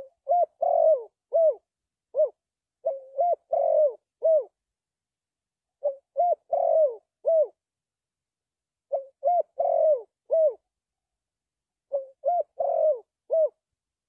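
Spotted dove cooing: a phrase of several hollow coos, given five times about every three seconds.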